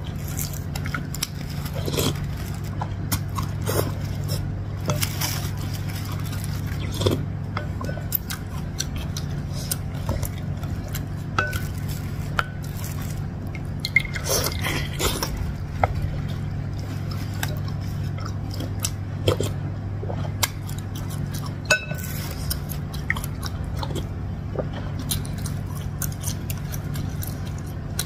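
Close-up eating sounds: a wooden spoon and fork clicking and scraping against a ceramic bowl while a giant meatball in broth is cut, and wet chewing and slurping of big bites, busiest about halfway through. A steady low hum runs underneath.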